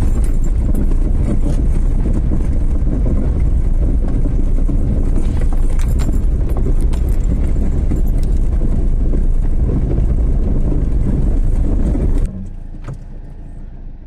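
A vehicle on the move, heard from on board: a loud, steady low rumble of engine and road noise with scattered knocks and rattles. About 12 seconds in it cuts off suddenly to a much quieter, steady hum.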